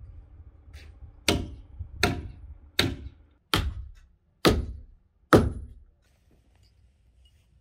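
A hammer pounding a log on a log cabin wall to seat it in place: six heavy strikes, a little under one a second, then the hammering stops.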